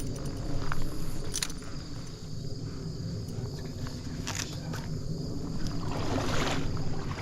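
Steady rushing and sloshing of stream water, with a few sharp clicks and a louder splashy hiss near the end.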